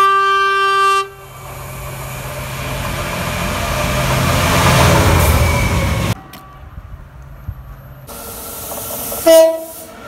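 Freight locomotive's horn sounding one loud note for about a second, followed by the train's rumble swelling as it approaches and runs past on the rails. The sound cuts off abruptly about six seconds in, and a second short horn blast sounds near the end.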